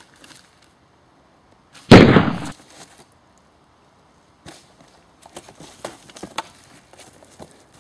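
A single loud gunshot bang about two seconds in, lasting about half a second with a short fading tail. Faint scuffs and clicks follow later.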